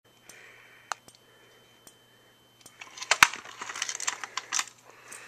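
Plastic clicks and rattles of a Simplex T-bar fire alarm pull station being handled and turned over in the hand: one sharp click about a second in, then a burst of clattering handling noise a little past the middle, its loudest click near the start of the burst.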